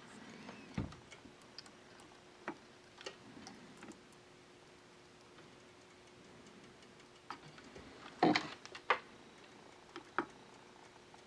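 Hand-soldering on a circuit board: scattered small clicks and taps of the soldering iron and solder against the board and component leads, with a cluster of louder ones about eight seconds in. A faint steady hum runs underneath.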